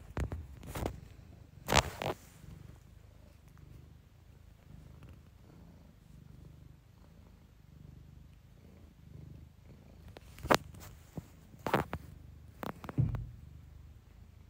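Domestic cat purring steadily close to the microphone. Loud, sharp rustles and knocks near the start and again near the end, which are the loudest sounds.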